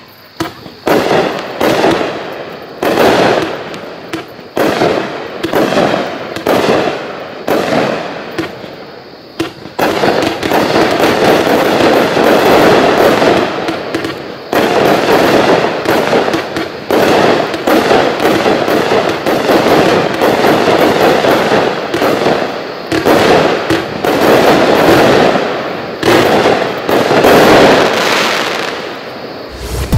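Ghost Supernatural finale set of five 1-inch consumer aerial cakes firing: a run of shots and bursts. It starts as separate volleys and becomes a near-continuous barrage about ten seconds in.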